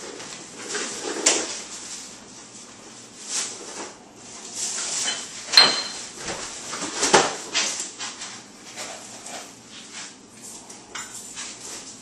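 Plastic garbage bags rustling as they are shifted and handled, with several sharp knocks and clinks, the sharpest a little before halfway.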